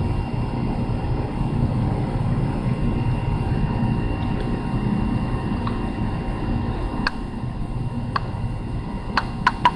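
Steady low outdoor rumble, with a few sharp clicks near the end.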